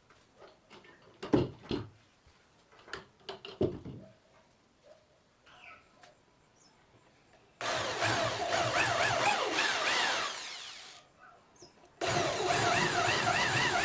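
A few knocks of wood being handled, then a power drill runs twice, each run about three seconds long, its pitch wavering up and down.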